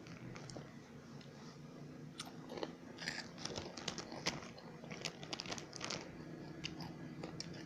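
Crunchy snack being bitten and chewed: a run of crisp crunches, thickest in the middle of the stretch, then quieter chewing.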